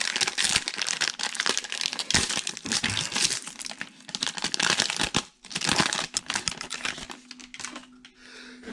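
The wrapper of a 2020 Score football trading-card pack crinkling and tearing as it is pulled open by hand. It crackles densely and unevenly, then dies down over the last second or two.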